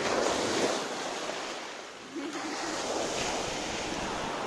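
Waves washing onto a pebbly shore, swelling loudest in the first second, easing off around two seconds in, then rising again.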